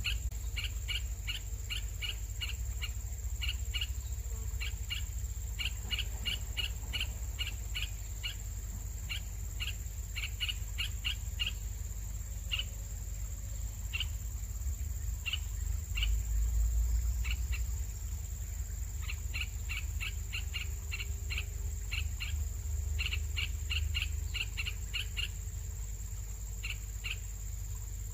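Baby birds chirping: runs of short, high chirps, several a second, broken by pauses, over a low rumble and a steady high-pitched whine.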